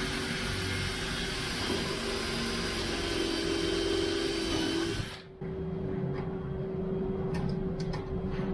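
An electric power tool running with a steady hum and a high hiss; about five seconds in it briefly drops out, then runs on with the hiss much reduced.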